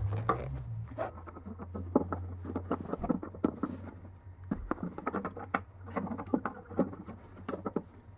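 Hands handling small disassembled check valve parts and a paper shop rag on a wooden bench: irregular light clicks, taps and rustles.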